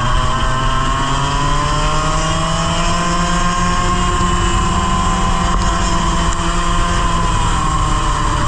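100cc two-stroke kart engine at racing speed, heard onboard over wind rush. Its revs climb only slowly for the first few seconds, then hold and ease off slightly near the end, fitting the driver's complaint that the engine bogged in corners and had no power until partway down the straight.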